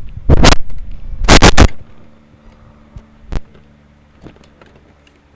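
Heavy thumps and pops from microphones and their cables being handled and replugged: two loud bumps in the first two seconds, then a sharp click a little after three seconds, with small ticks. A steady low electrical hum sits underneath.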